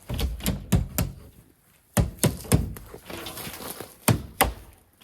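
Hard knocks and thunks in quick groups from a wooden shipping crate being knocked and pried apart.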